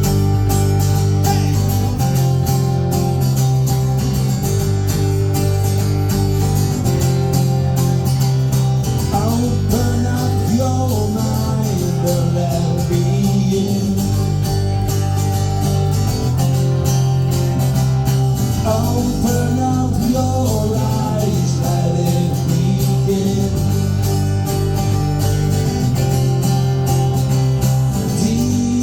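A band playing a guitar-led rock song live, with guitars over a steady bass line.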